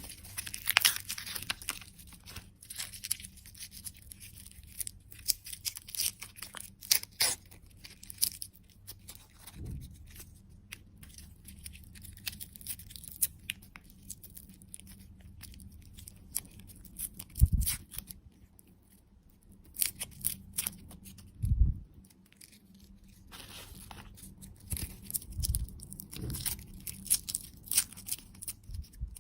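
Candy packaging being torn open and crinkled by hand: bursts of crisp crackling and tearing with short pauses between them, and a few soft thumps.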